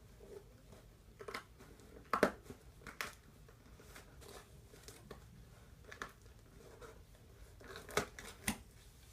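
Toy packaging being handled and opened: irregular crinkling, tearing and sharp clicks, loudest about two seconds in and twice near the end.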